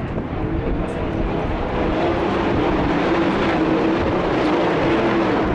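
Sprint car V8 engines running at speed on the dirt track. The sound grows louder over the first two seconds as cars come closer, then holds as a steady engine note.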